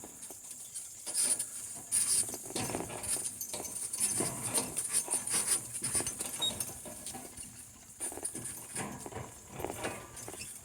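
A pair of donkeys walking in harness and pulling a four-wheeled cart: an irregular run of soft hoof knocks with the clatter and rattle of the cart and harness.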